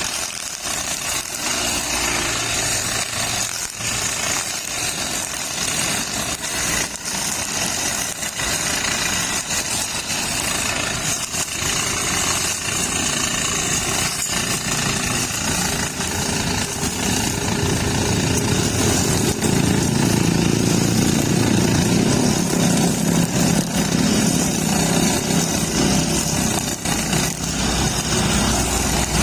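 Petrol brush cutter running with nylon trimmer line, a steady engine sound that gets louder and heavier from about halfway through.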